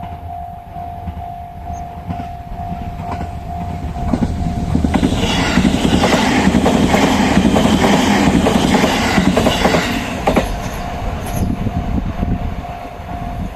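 Level-crossing warning bell ringing in a steady rapid pulse as the Odoriko limited express train passes. The train's rumble and wheel clatter swell up about four seconds in, are loudest for several seconds, then ease off. The bell is heard again and stops near the end.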